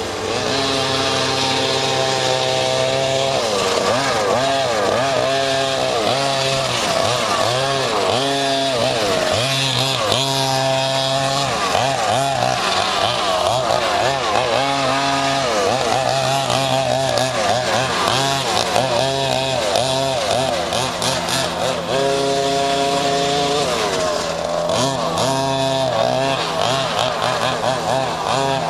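Small two-stroke engines of large-scale gas RC cars racing, revving up and down over and over as they speed up and slow around the track, their pitch climbing and falling and at times overlapping.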